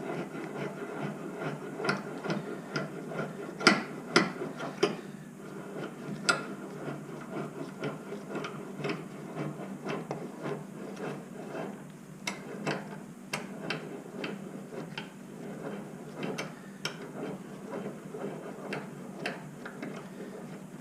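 A 6-inch cast-iron carpenter's vise being cranked shut on a piece of scrap wood: many irregular metallic clicks and knocks from the screw, handle and wood being handled, the loudest about four seconds in.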